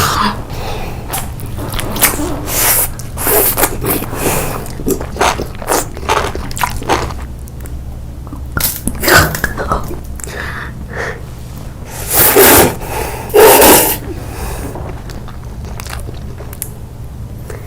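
Eating sounds: crisp crunching bites and chewing in quick irregular strokes, with two loud noisy bursts in a row about twelve seconds in.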